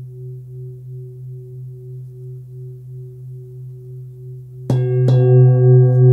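A 26.5 cm hand-forged Full Moon singing bowl with a fundamental of about 130 Hz, ringing with a slow, even wobble. Near the end it is struck twice about half a second apart and then rings much louder, with many more overtones.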